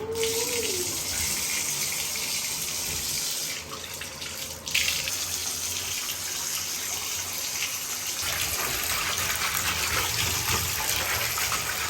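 Bathtub tap running, filling the tub with water. The flow drops for about a second, about four seconds in, then gushes back at full strength.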